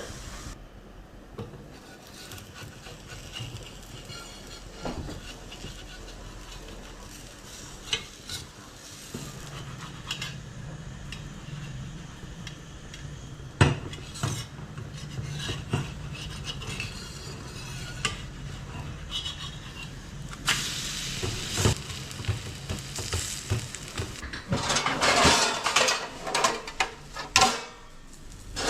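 A besan chilla frying in an oiled pan, with a spatula knocking against the pan now and then and scraping it hard and often in the last several seconds.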